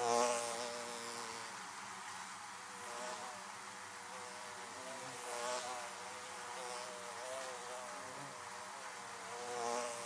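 Honeybees buzzing around a hive entrance: a steady drone of many bees, swelling louder as single bees fly close past just after the start, about halfway through, and near the end.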